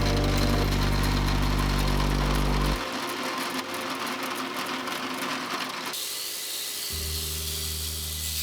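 Belt grinder running and grinding a 5160 steel blade: a steady motor hum with an abrasive hiss. The sound changes abruptly about three seconds in, when the low hum drops away, and again about six seconds in, when the hiss cuts off and a different steady low hum follows.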